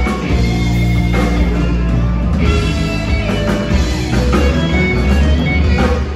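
Live rock band playing: electric guitars, bass guitar, keyboard and drum kit, with the music thinning out briefly near the end.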